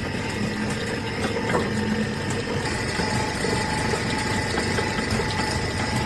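Woodworking machine's electric motor running steadily, with a faint steady whine and a few light ticks.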